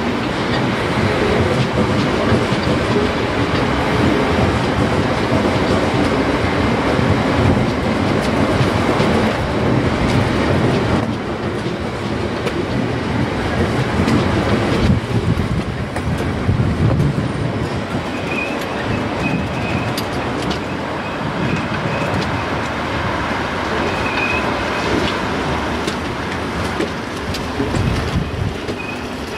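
A Siemens Desiro electric multiple unit passing slowly over pointwork, its wheels clattering over the rail joints and crossings. From a little past halfway a thin, high wheel squeal comes and goes as the wheels grind through the curve.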